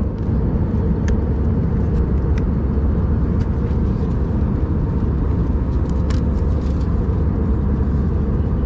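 Airliner cabin noise: the steady low rumble of jet engines and airflow in flight. A few faint plastic clicks come through as a plastic in-flight meal container is handled and its lid taken off.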